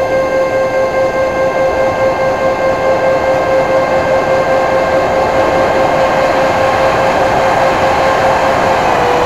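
Dynam Turbo Jet RC model's electric drive in flight, heard from inside the cockpit: a steady high whine with a stack of overtones over rushing air, pulsing a few times a second at first and dipping slightly in pitch near the end. The whine is the harmonic sound the owner calls terrible and tried to cure by balancing the rotating parts.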